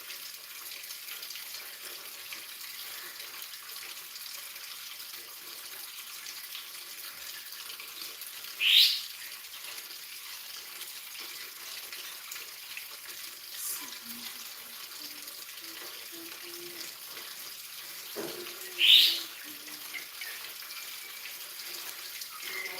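Pelatuk bawang woodpecker giving two short, loud calls that rise sharply in pitch, about ten seconds apart. A steady hiss like running water lies under them.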